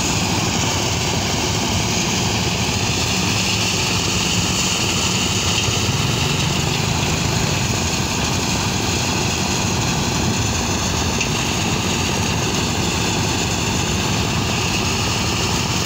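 An engine-driven soybean thresher running steadily while soybean plants are fed into its drum.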